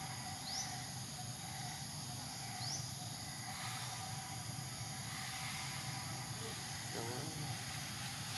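Steady outdoor forest ambience with a continuous insect drone, broken by two short high rising chirps in the first few seconds and a faint brief call about seven seconds in.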